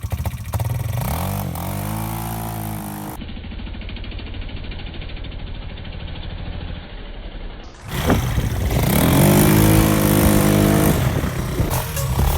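Off-road motorbike-type engine revving hard, its pitch climbing and dropping again and again. A duller, muffled stretch from about three to eight seconds in gives way to loud revving again.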